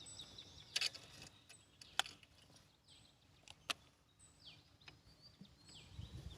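Birds chirping faintly, short downward-sliding calls near the start and again near the end, with three sharp clicks or knocks in between.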